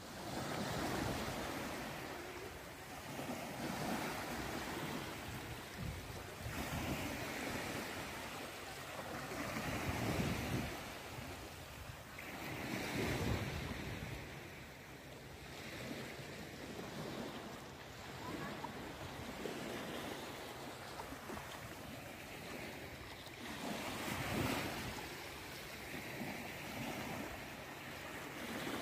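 Sea waves and wind: a rushing noise that swells and fades every few seconds, with wind buffeting the microphone.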